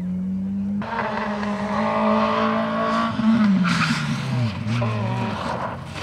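Rally car engine held at high revs, then the revs fall from about halfway with quick up-and-down throttle blips as it slows for a corner. Sharp cracks and bangs come in over it, the loudest just after the revs start to drop and again near the end.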